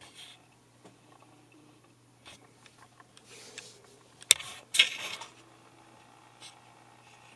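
Handling noise from a Panasonic Lumix G7 camera: fingers rubbing and clicking on its body and controls, with two sharp clicks about four and a half seconds in, over a faint steady low hum.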